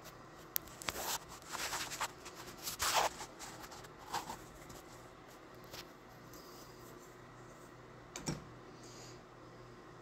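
Light metal clicks and scrapes from hands handling door-lock parts and a spanner wrench, busiest in the first four seconds, with one sharper knock a little after eight seconds in.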